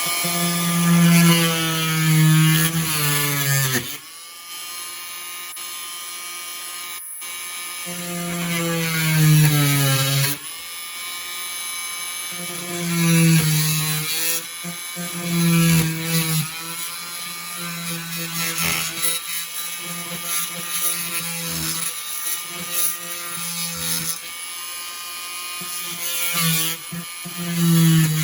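Power tool cutting an outlet-box opening in a wall, its motor running in repeated bursts of one to three seconds with the pitch dropping at the end of several of them.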